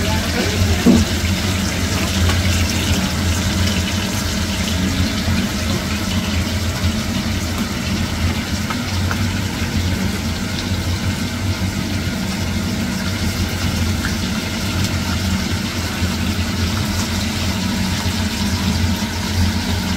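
Small whole capelin deep-frying in hot oil in a cast-iron pan: a steady bubbling sizzle with fine crackles over a steady low hum, and a brief louder knock about a second in.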